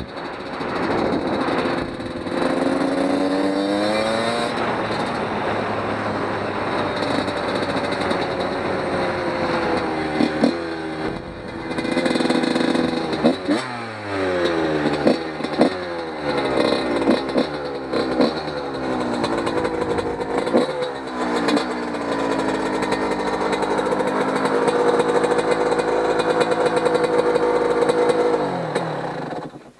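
1997 Yamaha YZ125 single-cylinder 125cc two-stroke engine, with a freshly rebuilt top end, being ridden on light throttle while still being broken in. Its pitch rises and falls through the gears, with a run of quick blips in the middle, then holds steady before dropping away and cutting off suddenly near the end.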